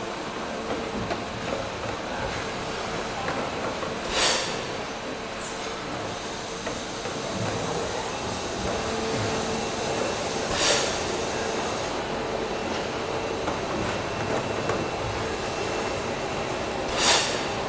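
Jih Huang EBMC-16T-2L4HDS electric blow molding machine running, a steady machine noise broken three times, about every six and a half seconds, by a short loud hiss of compressed air. The hisses mark the machine's moulding cycle, the blow air being vented as each set of bottles is formed.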